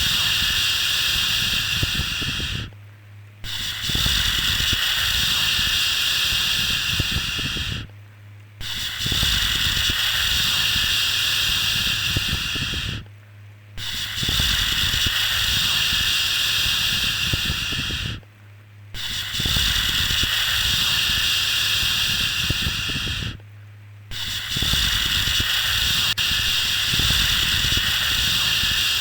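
A repeated 'shhh' shushing sound used to soothe a baby to sleep. Each shush is a steady hiss of about four to five seconds, followed by a short break, six times over.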